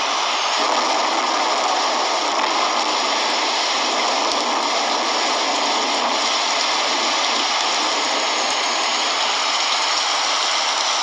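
Rain falling steadily on the sea, an even hiss that does not change.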